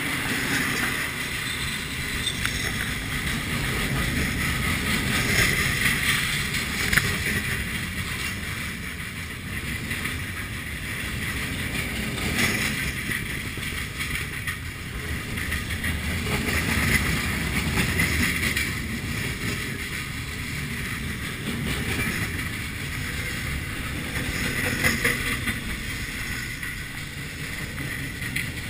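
Freight train cars rolling past close by: a steady rumble of steel wheels on the rails, with a higher rail noise that swells and eases every few seconds.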